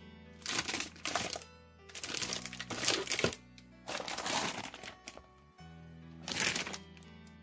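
Plastic bags of model-kit runners crinkling in four bouts of handling over quiet background music.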